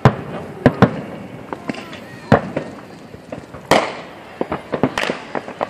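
Aerial fireworks shells bursting: a string of sharp bangs, about seven loud ones in under six seconds with smaller pops between.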